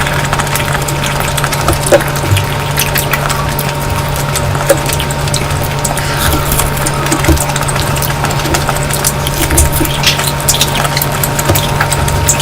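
Close-miked eating sounds: wet chewing and smacking with irregular small clicks, over a steady low hum.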